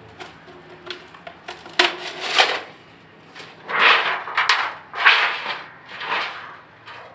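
Hand work on the sheet-metal shell of a motorcycle exhaust muffler: a couple of sharp metallic clicks, then three or four rasping scrapes about a second apart.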